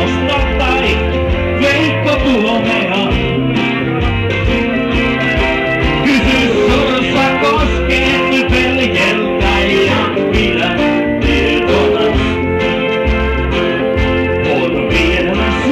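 Live band playing a country-rock song: male vocals over acoustic guitar, bass guitar and drums, with steady drum hits throughout. Recorded on a mobile phone from the audience.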